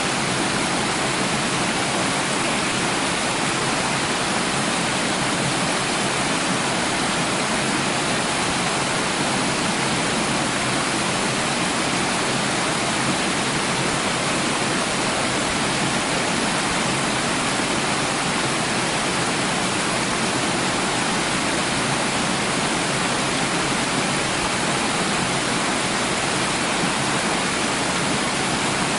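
Running water, a steady even rushing hiss that does not change or break.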